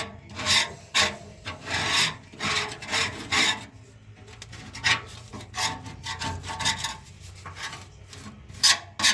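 Scraper rasping along the floor of an Oklahoma Joe's Highlander offset smoker's steel cooking chamber, scraping off built-up greasy residue in quick, irregular strokes, with fewer strokes partway through.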